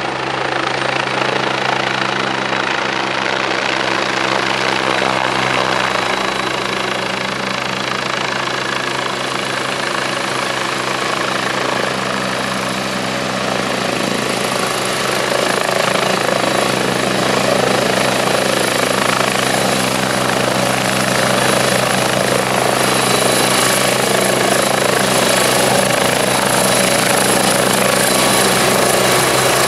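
Westland Wasp helicopter coming in to land and hovering low: the steady beat of its rotor with the high whine of its Rolls-Royce Nimbus turboshaft, growing gradually louder as it nears.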